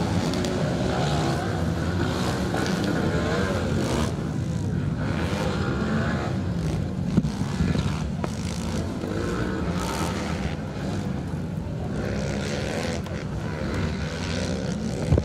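Several motocross dirt bikes racing on a dirt track, their engines revving up and down as they ride the course.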